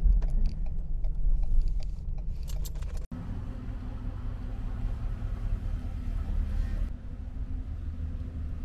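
Truck driving slowly, heard from inside the cab: a low rumble with scattered light clicks and rattles. About three seconds in it cuts abruptly to a steadier low hum with a faint steady tone.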